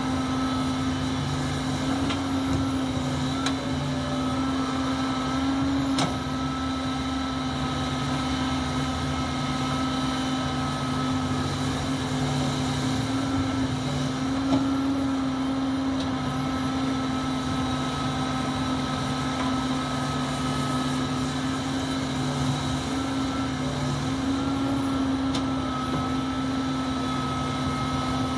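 Komatsu PC450 excavator's diesel engine running steadily under load while digging and loading soil, a constant drone that wavers slightly in pitch, with a couple of faint knocks.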